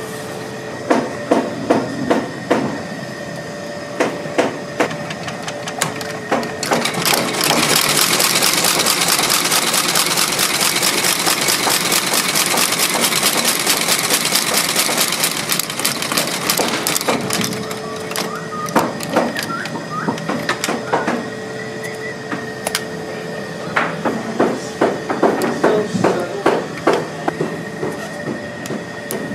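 Outsole-stitching machine running, a dense rapid mechanical clatter for about ten seconds in the middle as a lugged boot sole is fed through it. Scattered knocks and clicks before and after it, and a faint steady machine hum underneath.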